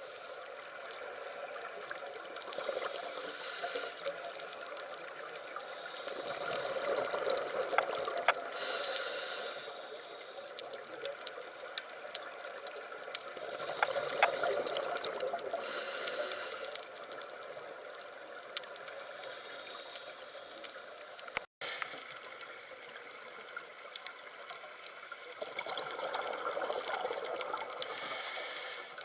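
Water trickling and gurgling in a steady bed that swells and fades every several seconds, with a brief cut-out about two-thirds of the way through.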